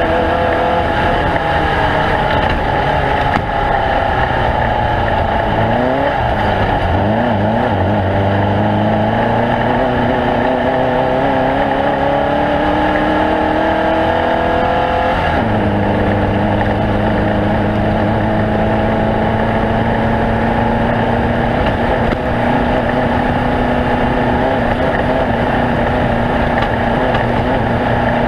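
Off-road race vehicle's engine running loud and continuous; its pitch dips about six seconds in, climbs for several seconds, drops suddenly about halfway through, then holds steady.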